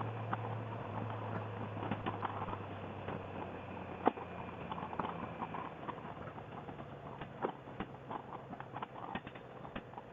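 Motorcycle engine idling with a steady low hum while stopped, under scattered light clicks and ticks, with one sharper click about four seconds in.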